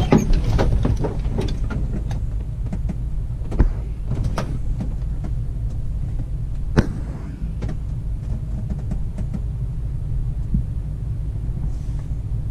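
Schweizer SGS 2-33 glider on its takeoff roll behind a tow plane: a steady low rumble from the wheel running over the runway, with the airframe and canopy rattling and knocking. The sharpest knocks come at the very start, about three and a half seconds in, and about seven seconds in.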